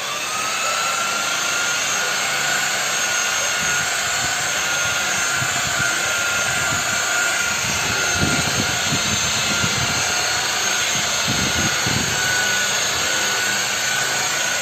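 Electric car polishing machine spinning up with a rising whine, then running at a steady high whine. Low rumbling bumps come about eight seconds in and again around eleven seconds, as the pad works against the car's surface.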